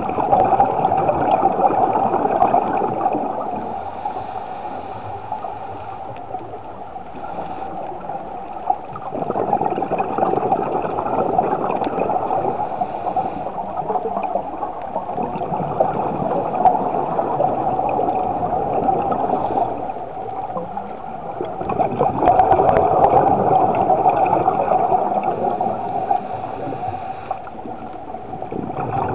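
Scuba diver breathing underwater through a regulator, with exhaled bubbles gurgling and rushing, swelling louder and fading back every few seconds.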